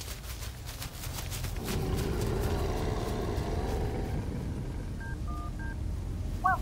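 Three short mobile-phone keypad beeps, each a pair of tones, a little after five seconds in, as a number is dialled. Under them a low rumbling drone swells up about two seconds in.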